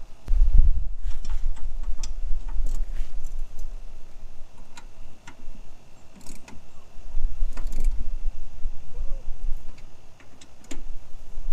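Scattered metallic clicks and clinks of hand tools and hardware as blades are fitted to a Honda self-propelled mower, over an uneven low rumble.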